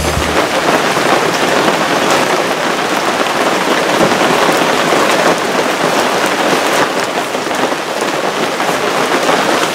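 Rain falling steadily on a wet paved driveway, an even, dense hiss.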